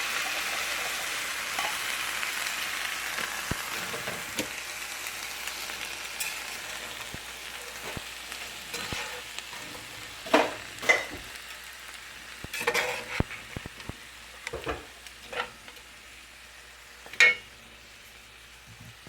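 Food sizzling in a hot pan, loudest at the start and slowly dying down, followed in the second half by several sharp clacks of a utensil against the pan as it is stirred.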